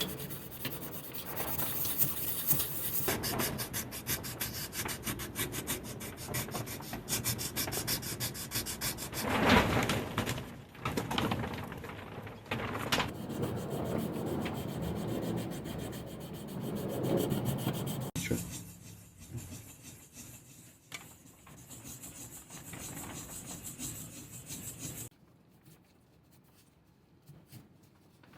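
Wood being filed and sanded by hand, likely the new wooden hammer handle being shaped: quick, even rubbing strokes, turning slower and fainter after about 18 seconds and stopping about 25 seconds in.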